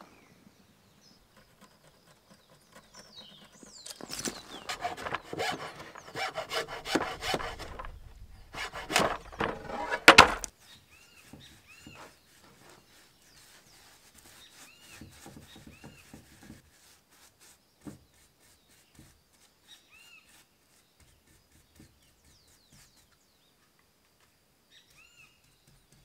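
Wood being worked in quick, rough rubbing strokes for about six seconds, ending in a sharp knock. After that come faint light scrapes of a paint brush on the boards, and a bird chirps now and then.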